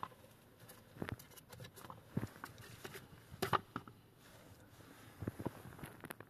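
Light handling noises: a few scattered taps and knocks as plastic blower motor units with squirrel-cage fan wheels are moved and set down on a rubber car floor mat, the loudest knock about halfway through.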